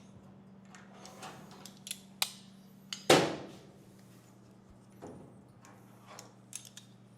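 Scattered clicks and knocks of tools and parts being handled, with one loud knock about three seconds in, over a steady low hum.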